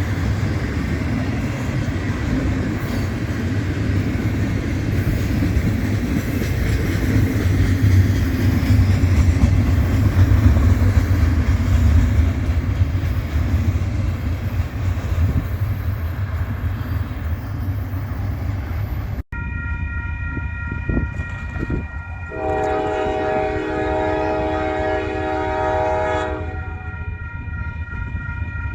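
Freight train cars rolling past with a steady low rumble. After a cut about two-thirds of the way in, a diesel locomotive's multi-chime air horn sounds a chord in a long blast, then starts another blast near the end after a short break.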